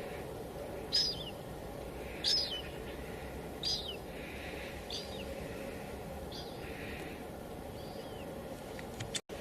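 Steady patter of light drizzle on a window, with a bird repeating a short descending chirp about every second and a half. Near the end the sound cuts out for an instant.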